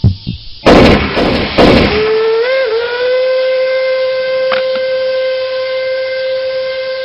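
A loud burst of rushing noise about a second in, then a steam locomotive whistle that starts about two seconds in, wavers briefly in pitch and settles into one long steady blast.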